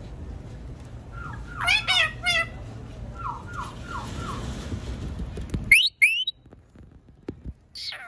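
Rose-ringed (Indian ringneck) parakeet calling. A quick run of three harsh squawks comes about a second and a half in, then four short falling notes, then two loud shrill screeches about six seconds in and one more at the end. A low steady background noise stops suddenly just before the loudest screeches.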